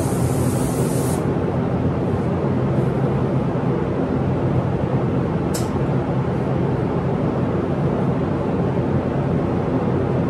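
Air-fed paint spray gun hissing as it sprays, cutting off abruptly about a second in. A steady mechanical drone from the spray booth's air system runs underneath, and a short sharp hiss of air sounds about halfway through.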